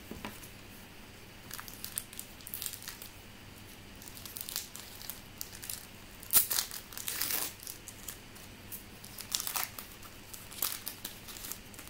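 Crinkling and rustling of a trading-card pack wrapper being handled and opened, in scattered short crackles, loudest about six to seven seconds in.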